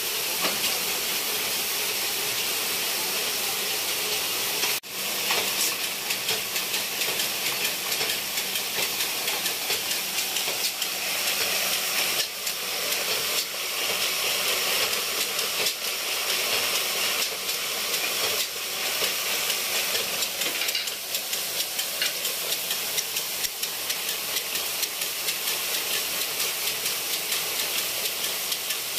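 Circular sock-knitting machines running: a steady, dense high-pitched clatter and hiss of the needles, with a brief break about five seconds in.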